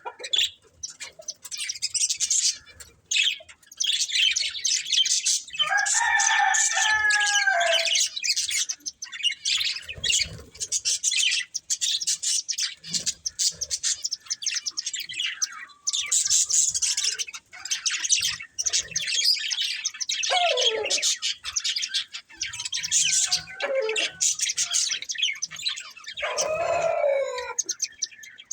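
A pair of budgerigars chirping and warbling in a rapid, continuous chatter. Lower, drawn-out calls break in a few times: about six seconds in, twice around the twenty-second mark, and near the end.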